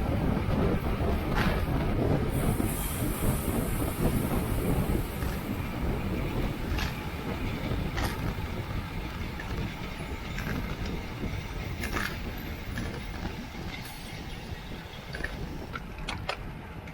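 Wind rush and tyre-on-road rumble from a racing bicycle at speed in a criterium, easing off gradually, with scattered sharp clicks and a brief high hiss early on.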